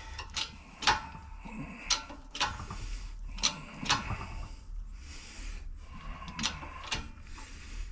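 Hydraulic shop press forcing a tight Del-A-Lum bushing into a C4 Corvette upper control arm: a run of sharp metallic clicks, often in pairs about half a second apart, over a low steady hum.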